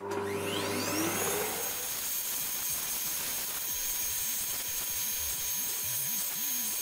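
Vacuum cleaner switched on, its motor spinning up with a rising whine over the first second or so, then running steadily with a thin high whistle. The nozzle is being worked over the dusty front of a loudspeaker cabinet.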